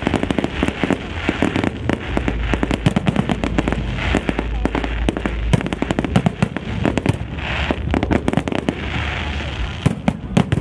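Fireworks going off in a dense, continuous barrage: rapid bangs and crackling with no let-up.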